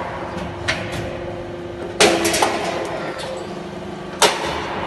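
CNC hydraulic angle-steel punching and cutting machine at work: sharp metal bangs of its die strokes, a loud one about two seconds in followed by a short rattle of clicks and another loud one just after four seconds, with a smaller knock near the start, over a steady machine hum.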